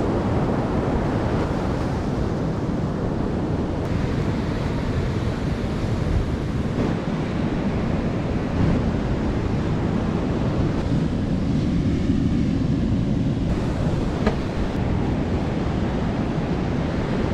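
Steady wind buffeting the microphone, with ocean surf washing behind it.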